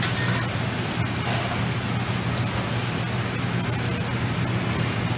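Onions and noodles sizzling on a hot flat-top griddle at a Mongolian barbecue station: a steady frying hiss over a steady low hum.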